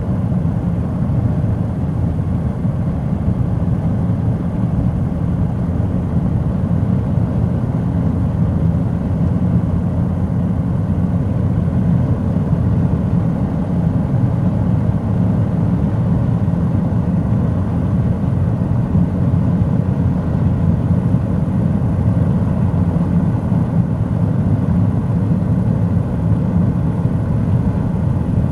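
Steady low road and engine rumble inside a car cabin at highway speed, with no change throughout.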